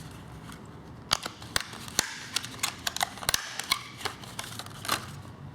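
About a dozen light, irregular clicks and taps of small parts being handled while a new motor is fitted to an RC truck's transmission.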